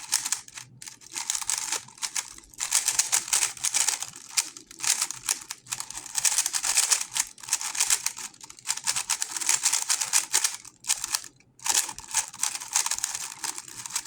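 GAN 11 M Pro magnetic speedcube being turned at speed during a timed solve: a dense stream of quick plastic clicks and clacks that breaks off briefly a few times.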